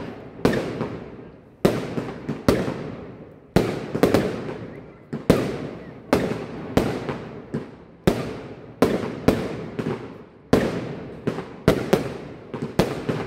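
Aerial firework shells bursting overhead in quick succession: about twenty sharp bangs, irregularly spaced from about a third of a second to a second apart, each trailing off in a long echo.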